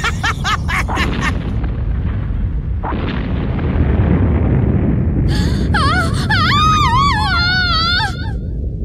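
Anime sound effect of the Idun Box's thick smoke pouring out: a steady, low, loud rushing noise that swells with a stronger burst about three seconds in. Over it, near the end, a high voice-like sound wavers up and down for about three seconds.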